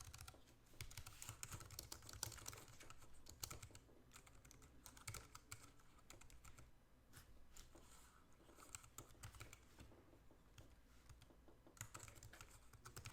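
Faint typing on a compact Bluetooth keyboard: a steady run of irregular key clicks as the keyboard is tried out.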